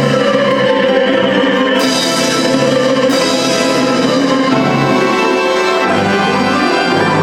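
Operetta orchestra playing an instrumental passage, with no singing.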